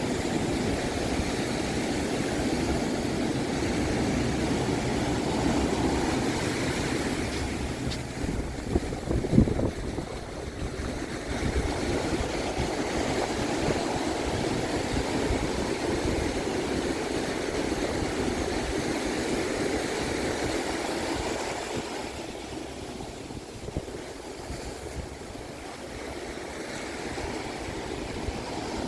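Ocean surf breaking and washing up a beach, with wind, rising and falling in slow swells. About nine seconds in there is one brief bump, the loudest moment.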